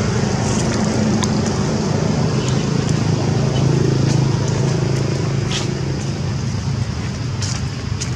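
A steady low hum of a motor vehicle engine running close by, its pitch drifting slowly, with a few faint ticks.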